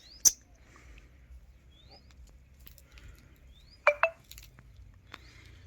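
Small bird chirping: faint short rising chirps that repeat every second or so. There is a sharp click near the start, and a brief, louder, sharp call about four seconds in.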